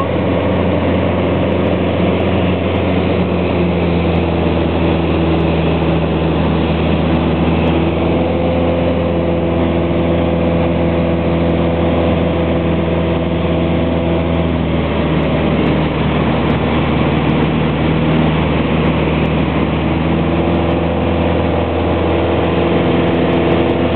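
Piston engine and propeller of a light single-engine aircraft running steadily, heard from inside the cockpit during a low pass. The engine note shifts slightly about midway through and again near the end.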